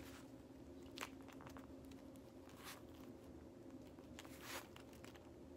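Faint crinkling and rustling of a clear plastic bag encasement as a canvas pouch is worked into a snug fit, with a soft click about a second in and a few longer rustles, over a faint steady hum.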